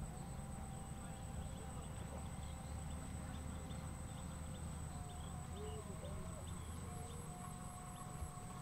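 Faint outdoor ambience: a low steady rumble and a thin steady high tone, with distant birds chirping in short, repeated calls.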